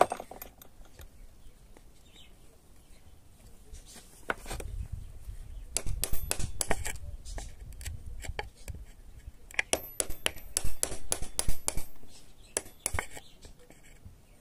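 Sharp knocks and taps as a small piece is knocked off while fitting a lock, coming in two bursts about six and ten seconds in.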